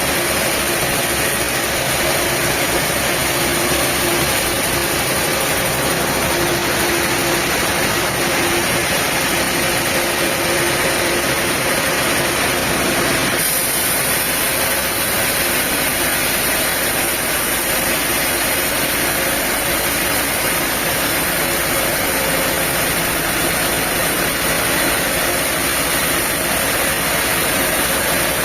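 Diesel-powered sawmill machinery running steadily, a continuous engine noise with no breaks. The sound changes abruptly about halfway through, turning brighter in the highest range.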